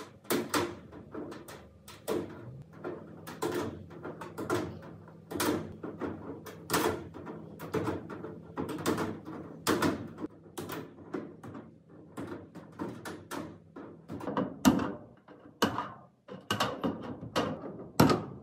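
Bolt cutters snipping through wire mesh: a string of sharp metallic snaps at an irregular pace, about one or two a second, with a short pause about two thirds of the way through.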